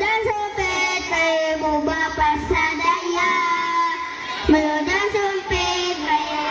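A group of young children singing together in unison, holding long notes.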